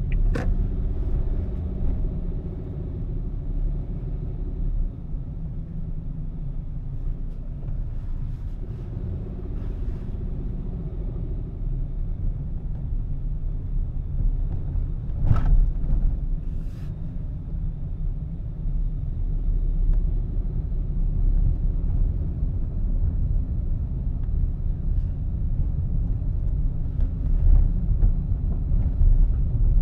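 Car driving along a paved road: a steady low rumble of tyres and engine, heard from the moving car. A single sharp knock sounds about fifteen seconds in.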